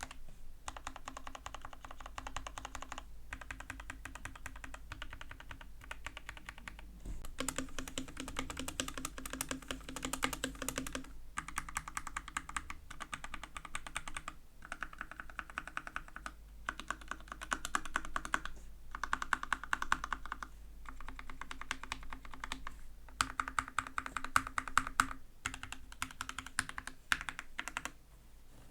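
Fast typing on an Epomaker/Skyloong AK84s mechanical keyboard with lubed Gateron Red linear switches and lubed stock stabilizers: rapid key presses in runs of a second or few, broken by short pauses, with a few louder strokes near the end.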